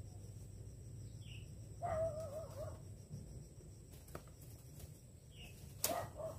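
A sharp knock near the end as the long trapping pole and trap are worked down through the tree branches, with a lighter click before it. About two seconds in, a short wavering bird call. A steady low rumble runs under everything.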